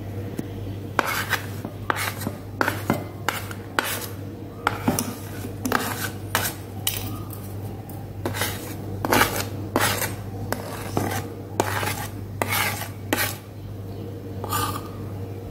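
A plate tapped and scraped against the rim of a glass mixing bowl as dry flour is tipped in: irregular knocks and scraping strokes, a few each second, over a low steady hum.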